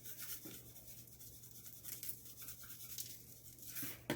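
Faint scratchy handling noises with many light ticks, over a steady low hum.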